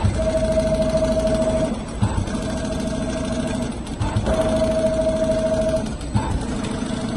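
Richpeace automatic rotating sewing machine stitching leather: a steady motor whine and needle hum that run for about a second and a half, stop briefly and start again, roughly every two seconds, with a low knock just before each run.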